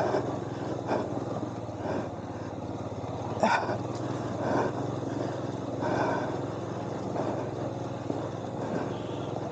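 Royal Enfield Himalayan's single-cylinder engine running at a steady low speed on a dirt track, with a few short louder knocks and rattles over it, about a second apart early on and again a few seconds in.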